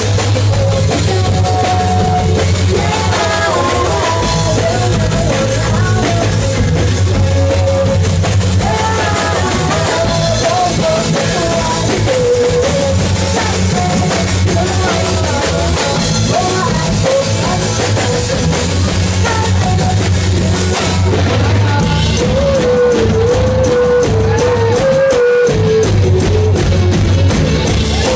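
Loud rock music with a drum kit and a singing voice, playing continuously.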